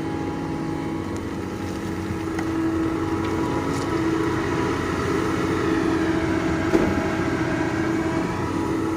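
Doosan DX225LCA excavator's diesel engine running steadily, getting a little louder a couple of seconds in, with a single short click near the end.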